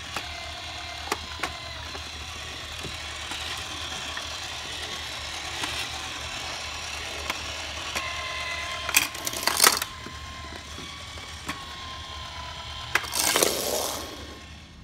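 Plastic gear mechanism of a toy train playset's turntable whirring and rattling as it turns, with scattered sharp clicks. Louder clatters come about nine seconds in and again about thirteen seconds in.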